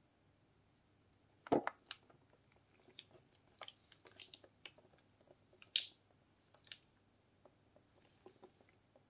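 A plastic-wrapped cardboard watch box handled and turned over in gloved hands: a knock about one and a half seconds in, then scattered crinkles and taps of the wrap and box, with another sharp crinkle near six seconds.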